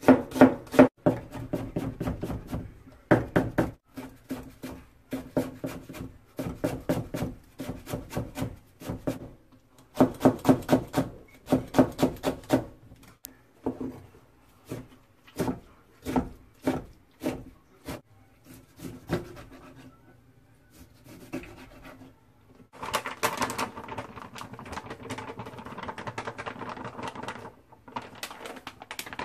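Chef's knife chopping vegetables on a plastic cutting board: rapid runs of sharp strokes with short pauses between runs. A few seconds before the end, a denser, more continuous noise takes over.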